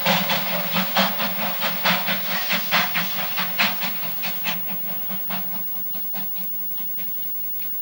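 Steam train chuffing with evenly spaced exhaust beats, about three a second, over a hiss, fading away over the last few seconds as it recedes.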